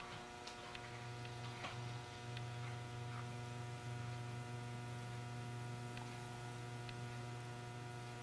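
Water boiling around a CRT electron gun driven at 145 volts DC, with scattered small ticks and crackles over a steady low electrical hum that sets in about a second in. The hum is weaker than the same setup gives on AC, when the water in the gun itself hums.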